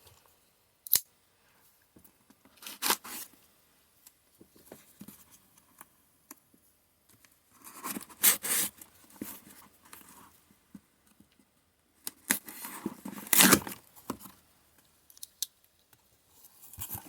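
A mailed package being opened by hand: tape and packaging tearing and being cut, in short spells with pauses between, the longest and loudest about two-thirds of the way through.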